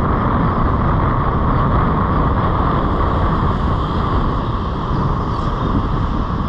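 Wind buffeting the microphone in a steady, loud rumble, with surf washing onto the beach.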